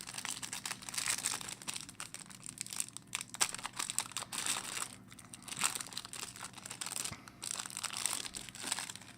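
Plastic wrapping of a trading-card pack crinkling while the cards inside are handled and slid apart: an irregular run of crackles and rustles.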